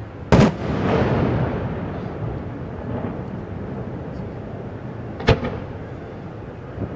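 Fireworks going off: a sharp bang shortly after the start with a rumbling, crackling tail that fades over about a second and a half, then a second sharp bang about five seconds in.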